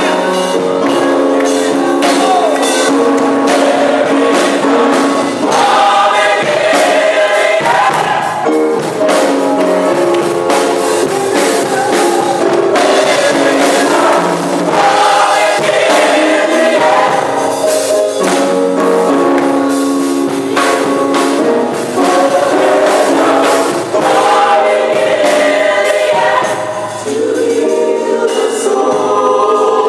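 A gospel choir singing in harmony, holding chords that change every second or two, with instrumental backing and percussion hits.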